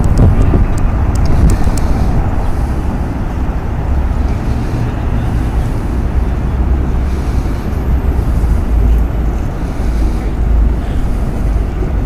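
Wind buffeting the microphone, a loud uneven low rumble, with a few light ticks in the first two seconds.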